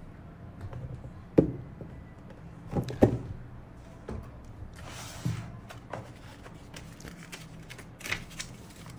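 Cardboard packaging being handled on a tabletop: a few sharp knocks and thuds as the box and its molded-pulp insert are set down, a brief sliding rustle about five seconds in, then light paper handling near the end.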